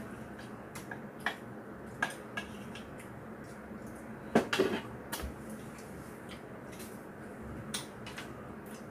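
Spoon and chopsticks clinking and scraping against bowls and a frying pan while eating: a few scattered clinks, the loudest cluster about four and a half seconds in.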